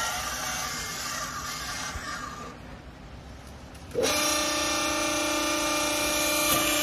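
Hydraulic clothes baler's motor and pump starting suddenly about four seconds in and running with a steady hum as the press platen lifts off the strapped bale. Before it, a few seconds of hiss.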